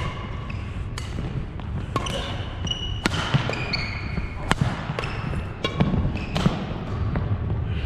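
Badminton rally on a hardwood gym court: sharp smacks of rackets hitting the shuttlecock roughly once a second, with short high squeaks of court shoes on the floor between hits.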